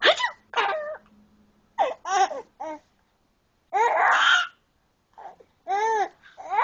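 Baby laughing hard in short high-pitched bursts of giggles with gaps between them, and a longer breathy burst about four seconds in.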